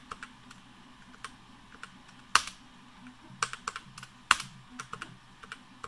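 Typing on a computer keyboard: irregular key clicks, with two much louder keystrokes about two and a half and four and a half seconds in.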